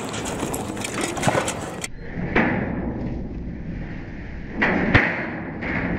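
Metal gates and pen rails clanking and thudding. There are several separate knocks, the sharpest one about five seconds in, over a steady background that changes abruptly about two seconds in.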